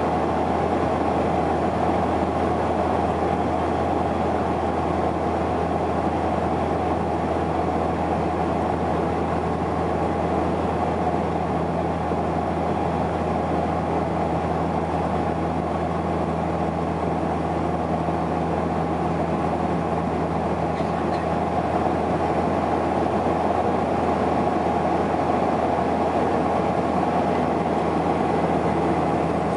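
Steady cabin drone of a Saab 340B's General Electric CT7 turboprop engines and propellers in flight, heard from a seat beside the wing: a low, even hum with a steady higher whine over it.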